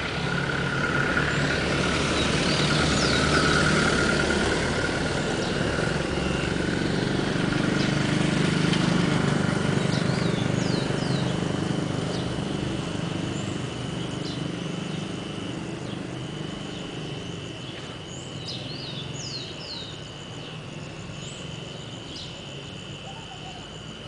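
A motor vehicle's engine running, loudest in the first half and gradually fading. From about ten seconds in a steady high insect trill sets in, with short falling bird chirps over it.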